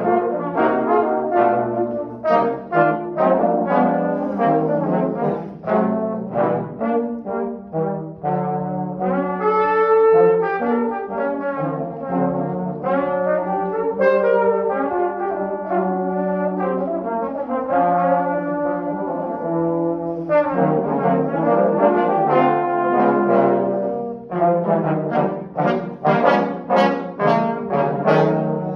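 A trombone quartet: four trombones playing a piece in harmony. Short detached notes give way about nine seconds in to longer held chords, and short detached notes return about twenty seconds in.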